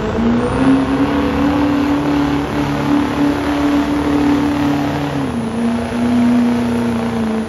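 Diesel pickup truck engine held at high revs under full load while pulling a weight-transfer sled. Its pitch climbs at the start, holds steady, and steps down a little about five seconds in.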